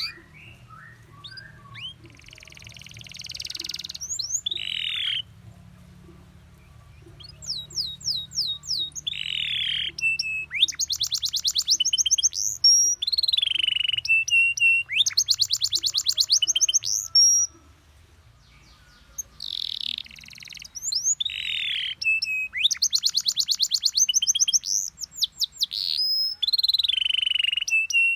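Domestic canary singing a long, varied song of rapid trills of repeated notes, buzzy rolls and sweeping notes, in phrases broken by short pauses.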